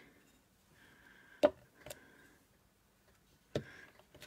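Clear rubber stamp on its stamping block being set down and pressed onto paper: a few sharp clicks and taps, the loudest about a second and a half in.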